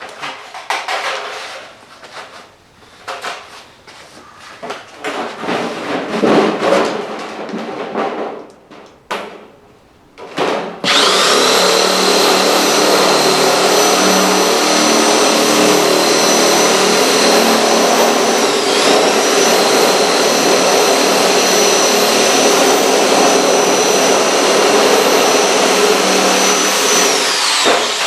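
Kett electric power shear cutting sheet metal. Irregular clattering and scraping of the metal sheet first, then about a third of the way in the shear's motor starts and runs steadily with a high whine. Its pitch dips for a moment partway through as it takes load, and it winds down with a falling pitch near the end.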